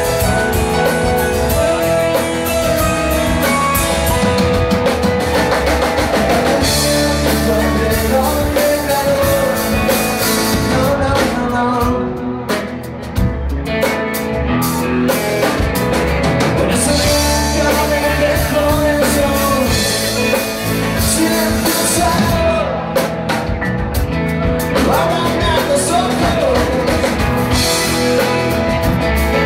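Live rock band playing a song: electric guitars, keyboard and drum kit. The cymbals drop out briefly about twelve seconds in and again about twenty-three seconds in.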